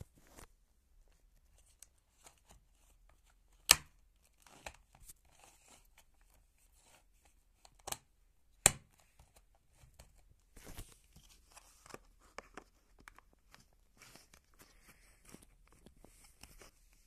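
Hard plastic construction-toy panels being handled on a wooden floor: scattered sharp plastic clicks and knocks, the two loudest about four and nine seconds in, between quieter scraping and rustling.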